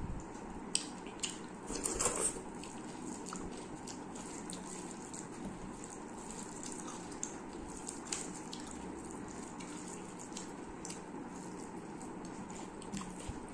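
Bare fingers mixing rice with raita on a steel plate: wet squishing with many small clicks and taps, and a louder wet burst about two seconds in.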